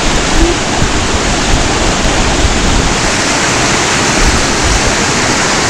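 Waterfall: a loud, steady rush of falling water, heard close up.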